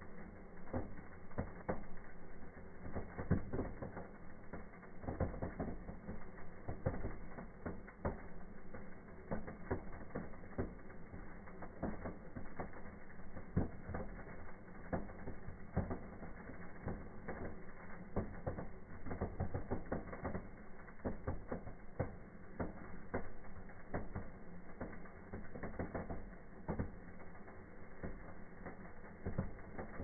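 Firework fountain burning, with dense, irregular crackling of spraying sparks that keeps up throughout.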